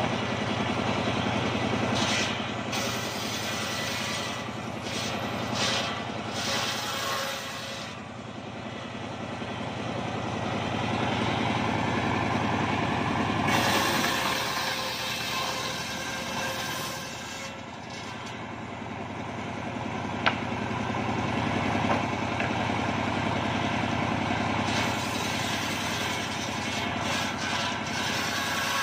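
Homemade engine-driven table circular saw ripping mahogany into boards: a steady engine hum under the whine of the big blade, swelling and easing as the blade bites into the wood and runs through. One sharp click partway through.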